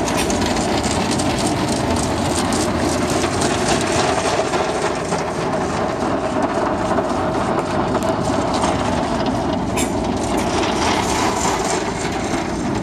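Automatic car wash heard from inside the car's cabin: water spraying and beating on the roof and windows in a steady rush, with many small slaps and clicks.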